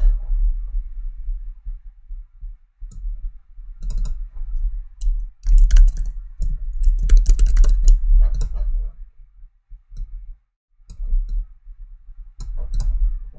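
Typing on a computer keyboard and clicking a mouse, in irregular bursts, with dull low thuds picked up along with the keystrokes.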